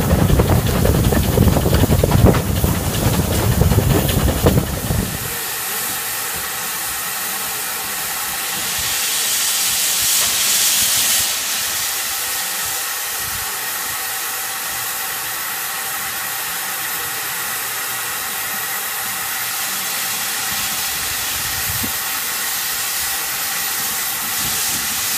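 Steam train running, heard from a carriage: a loud rumble that stops abruptly about five seconds in. Then LNWR Coal Tank No. 1054 standing in steam, hissing steadily from its safety valves and open cylinder drain cocks, the hiss swelling louder for a few seconds about nine seconds in.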